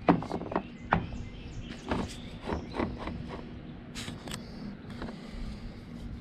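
Spray-paint cans being handled on a plastic pickup-truck tailgate liner: a string of light knocks and clicks, the two sharpest in the first second.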